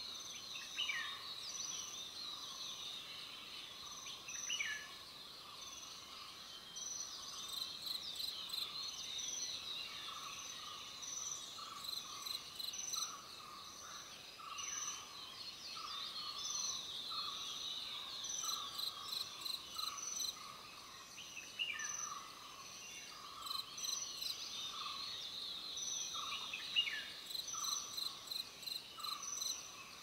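Forest ambience of insects chirping in steady, evenly repeating pulses at several pitches. A few short descending bird calls come now and then.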